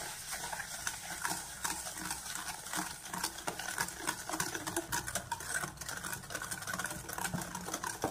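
Wire whisk beating eggs and sugar in a stainless steel bowl, its wires clicking and scraping against the metal in a fast, steady rhythm.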